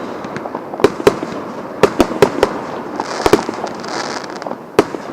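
Fireworks going off: about nine sharp firecracker bangs at uneven intervals, with two short high hisses around three to four seconds in.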